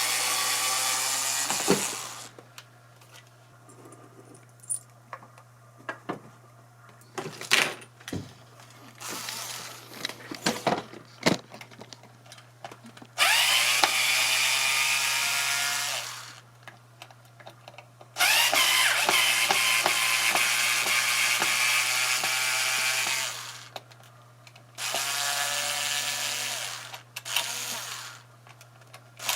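Cordless power drill running in about four bursts of a few seconds each, its motor pitch rising as it spins up, driving out screws during an electric guitar's disassembly. Sharp clicks and knocks of small parts and tools being handled fall in between.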